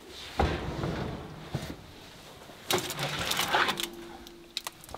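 An oven door is pulled open with a knock, then a foil-lined baking tray is slid out over the oven's wire rack, with metallic scraping and clattering.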